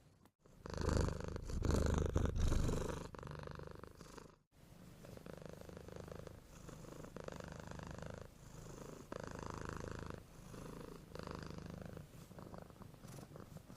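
Domestic cat snoring: a purr-like rumble on each breath, roughly one breath a second. It is louder for the first few seconds, breaks off briefly about four seconds in, then carries on more softly.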